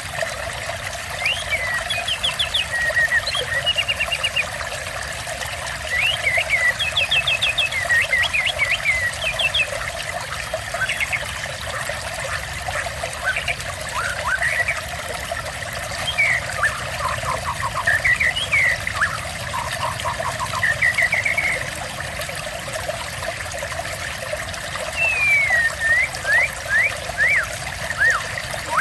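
Trickling, running water with a songbird singing over it: varied short whistled phrases, quick trills and rising and falling notes, in bursts separated by brief pauses.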